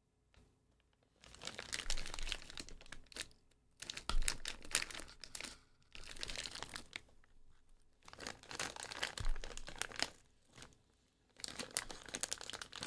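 A crinkly plastic snack wrapper being handled and torn open: several bursts of crinkling and tearing with short pauses between them.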